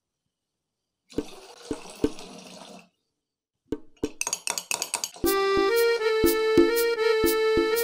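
Tea being made: a pouring hiss with three sharp clinks, then a quick run of spoon clinks against a glass. About five seconds in, background music with keyboard notes and a steady beat comes in and takes over.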